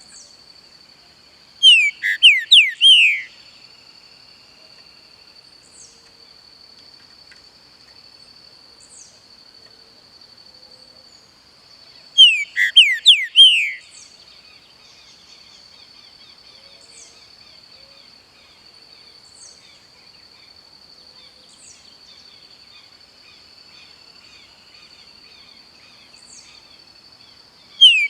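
Green-winged saltator (pixarro) singing: three short phrases of several slurred, down-sweeping whistled notes, each about a second and a half long and roughly ten seconds apart. Between them there is a steady high-pitched hum and faint high chips.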